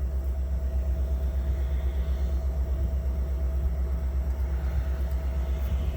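Steady low rumble with a faint constant hum above it.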